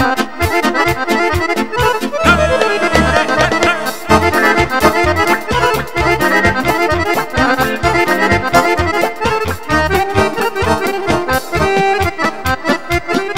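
Roland digital accordion playing a fast instrumental melody of Romanian folk party music, over a steady beat from the band's drums.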